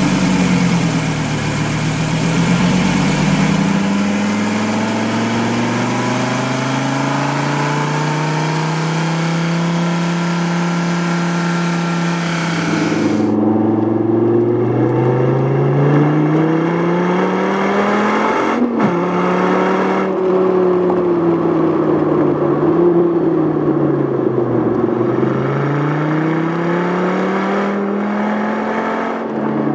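2013 SRT Viper's V10 engine revving under acceleration and easing off, its pitch rising and falling again and again as it pulls and lifts. For the first dozen seconds a steady hiss runs over it, then stops abruptly; a sharp click comes about two-thirds of the way through.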